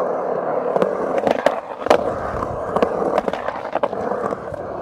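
Skateboard wheels rolling on concrete: a steady rumble broken by scattered sharp clacks.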